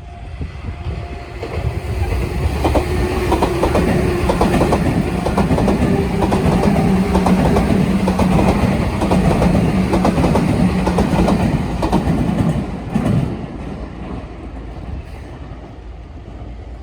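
Electric commuter train running over turnout rail joints, its wheels making a loud, rapid clickety-clack with a steady low hum beneath. The sound builds about two seconds in and drops away about thirteen seconds in as the train clears the points.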